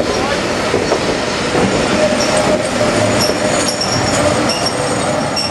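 Railway passenger coaches rolling past on the track, their wheels clattering over the rail joints. High-pitched wheel squeal starts about two seconds in and comes and goes.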